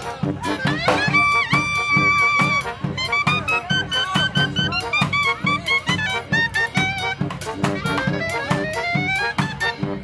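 Street brass band playing a ska tune: a clarinet up front with saxophones, trombone and sousaphone, over drums keeping a quick, steady beat.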